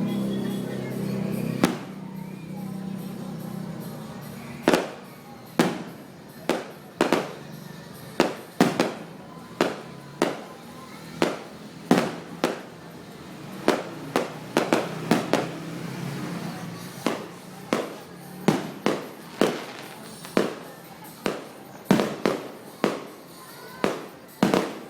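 New Year's Eve fireworks and firecrackers going off: a long, irregular run of sharp bangs, about one or two a second, each with a short echoing tail. Music with steady low notes plays under the first two seconds.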